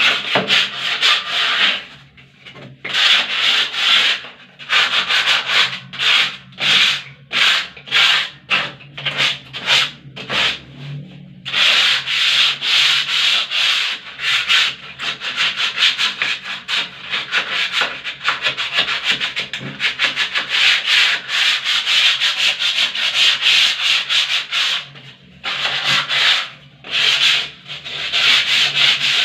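Sandpaper scraping over a dried skim coat on a wall in back-and-forth strokes, with a few short pauses and a long run of quick strokes through the middle.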